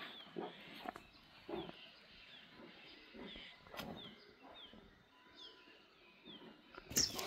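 Dogs growling and snarling in short, irregular bursts, with a bird chirping repeatedly in short downward notes in the background.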